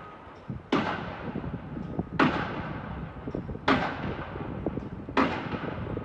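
Pile driver at a bridge construction site striking in a steady rhythm: four heavy blows about a second and a half apart, each trailing off before the next.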